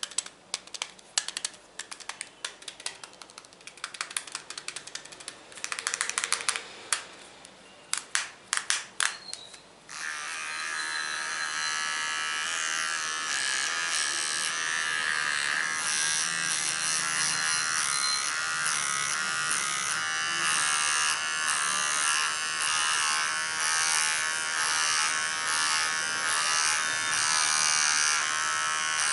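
Irregular clicks and taps, some in quick clusters, then about ten seconds in an electric trimmer switches on and buzzes steadily.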